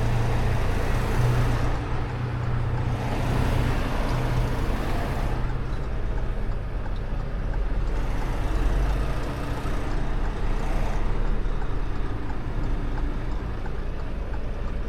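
Diesel semi-truck engine running with a steady low hum, with a rushing noise that rises and falls every few seconds.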